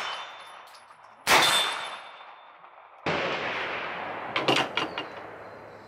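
A Hi-Point 995TS 9mm carbine firing at steel targets: a sharp shot about a second in with a long ringing tail, then a second, duller bang about three seconds in. A few quick light clicks follow near the end.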